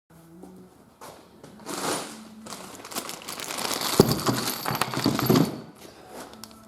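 Rustling and clattering of objects being handled, with a sharp knock about four seconds in.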